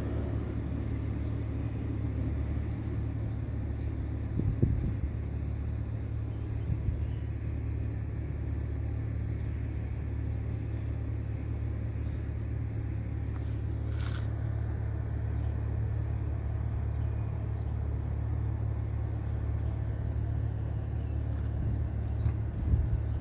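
Steady low rumble, with a brief thump about four and a half seconds in.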